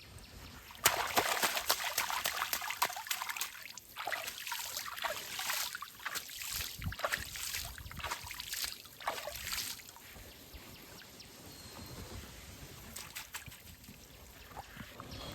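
Water splashing and sloshing, starting suddenly about a second in and going on in uneven bursts with sharp clicks for about nine seconds, then settling to a faint trickle.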